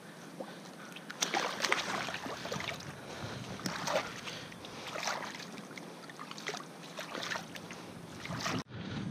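Shallow water splashing and sloshing around a pike being released by hand, and hands swishing through the water, in irregular splashes from about a second in. It cuts off abruptly near the end.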